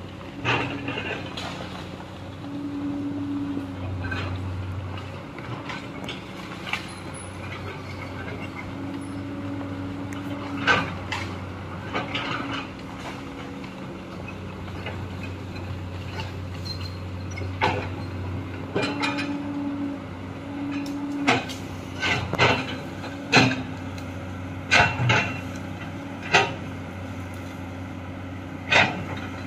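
Komatsu hydraulic excavator's diesel engine running, rising and falling with the load as it digs, with many sharp knocks and clanks that come more often in the second half.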